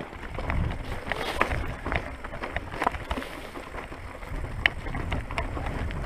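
Mountain bike on a loose-stone trail: scattered clicks, knocks and rattles from stones and the bike over a steady low rumble.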